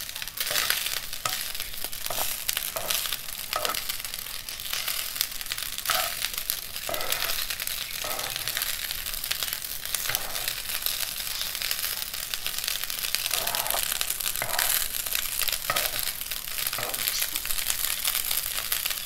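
Kinche (cracked grain) with scrambled egg sizzling in a frying pan while a metal spoon stirs and scrapes through it in repeated strokes.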